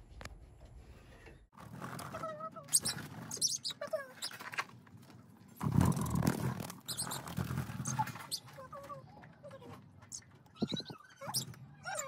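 Pet budgerigars and cockatiels chirping and chattering in short, quick calls, in several pieces that change abruptly; a louder burst of noise about six seconds in.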